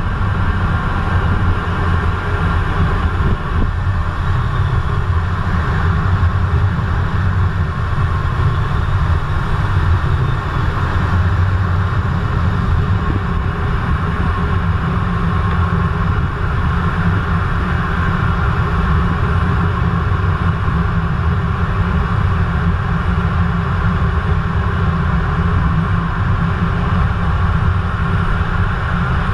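Twin Eurojet EJ200 turbofans and airflow of a Eurofighter Typhoon, heard from inside the cockpit in low-level flight: a steady low rumble with a hiss above it.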